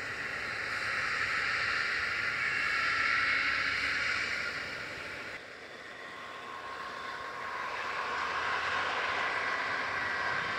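Claas Lexion 760 TerraTrac combine harvester running as it harvests protein peas: a steady, fairly high-pitched mechanical noise. About halfway through it drops suddenly in level, then builds up again.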